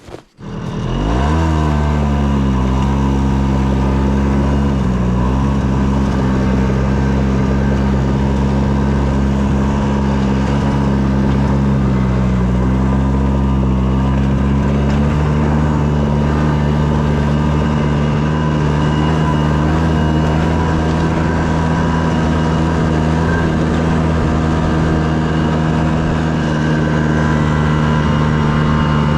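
Snowmobile engine coming up to speed about a second in, then running steadily under way with only slight dips in pitch.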